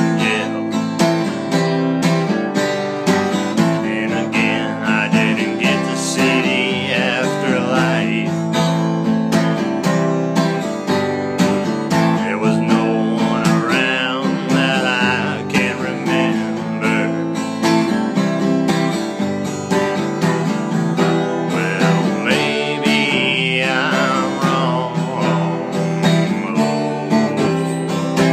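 Music: a song carried by strummed acoustic guitar, with a bending melody line rising above it every few seconds.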